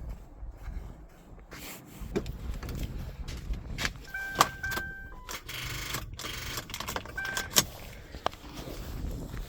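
Clicks and light rattles of handling around a car with a dead battery while it is being set up for a jump start, with a few short electronic beeps about four seconds in and one more near the end, and a brief hiss in between. No engine is heard running.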